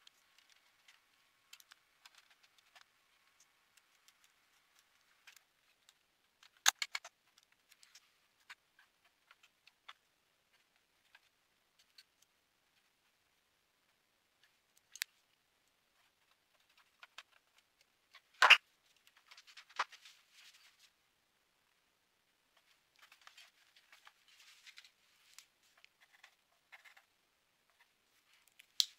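Small clicks and taps of a screwdriver and hands working the plastic case of a Dell 4350 projector during reassembly. A few sharper knocks stand out, the loudest about two-thirds of the way through, another early on the case and one just before the end as the projector is turned upright.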